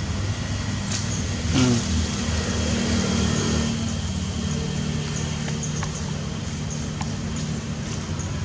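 A motor engine running steadily, a low hum whose pitch shifts slightly partway through, with a short falling sound about one and a half seconds in.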